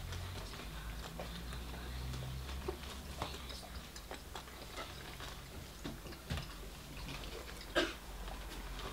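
A cat rummaging in a cardboard fried-chicken bucket and chewing scraps: scattered faint clicks and rustles at irregular intervals, one sharper click near the end, over a low steady hum.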